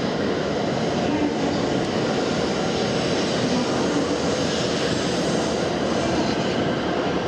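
E7 series Shinkansen train running at the platform, a loud, steady rushing noise with no breaks.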